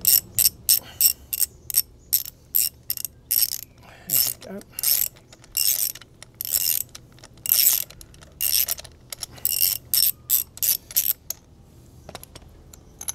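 Socket-set ratchet clicking in quick repeated runs as a spark plug is undone, dozens of short click runs that stop shortly before the end.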